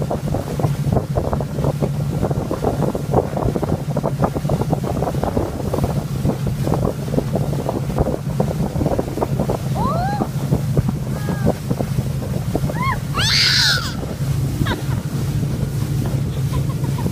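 Motorboat engine drone with heavy wind buffeting on the microphone. A toddler gives a few brief squeals about ten seconds in, then a short, high shriek a few seconds later.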